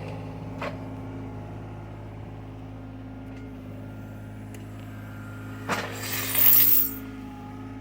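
Rented excavator's engine running steadily at idle. About six seconds in comes a loud, harsh noise lasting about a second.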